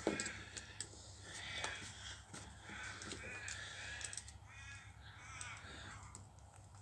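A crow cawing several times, short harsh calls about every second or so, with a few light clicks over a steady low hum.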